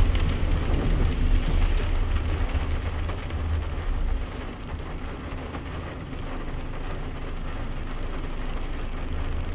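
Rain falling on a pickup truck's windshield and roof, heard from inside the cab over the low rumble of the truck rolling on a wet road. The rumble fades about four seconds in as the truck comes to a stop at the light, leaving a steadier, quieter wash of rain and the truck standing.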